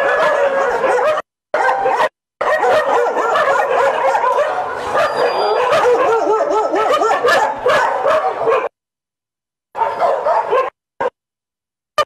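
Many dogs barking and yelping at once, their calls overlapping in a din. It breaks off abruptly at about nine seconds, followed by a short burst near ten seconds and a brief one at eleven.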